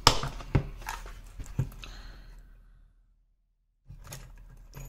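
Hard plastic Milwaukee drill-bit case being handled and opened: a few sharp clicks and knocks of its latches and plastic shell, with a moment of dead silence about three seconds in and more clicks near the end.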